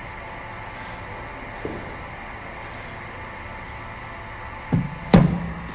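Steady hum of an indoor net hall, then near the end a dull thump followed by a sharp crack: a cricket ball fired from a bowling machine and met by the bat.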